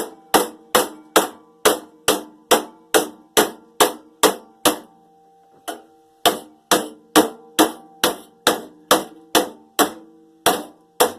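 Hammer blows on the metal parts of a microwave, struck in a steady rhythm of about two to three a second, each blow leaving a ringing metallic tone. The blows stop for about a second and a half near the middle, then carry on at the same pace.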